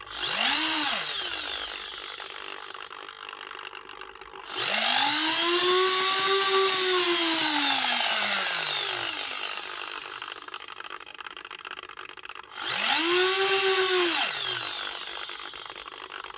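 The servo motor and gearing of an InMoov robot's rotating stomach base whine as the base turns three times, a short move, a long one and a medium one. Each whine rises in pitch as the motor speeds up and falls as it slows to a stop. The base is running dry, before its bearing has been greased.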